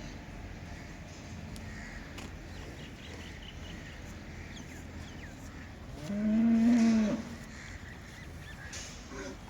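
A dairy heifer mooing once, a single call of about a second, about six seconds in, over a steady low background noise.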